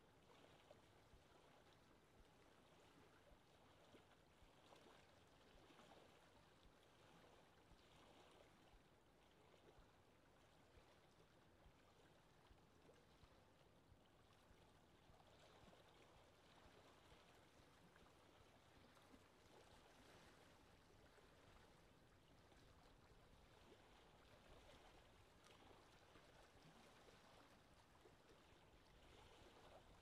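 Faint, steady lake ambience: wind over open water with small waves lapping, a soft hiss broken by little irregular splashes.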